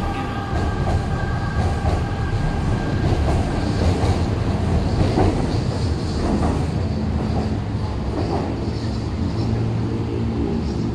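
Guangzhou Metro Line 4 L5 (SFM37) linear-motor train pulling out of the station. Its Times Electric IGBT-VVVF inverter whines over the running noise of the cars, with steady tones at first that give way to a higher whine a few seconds in.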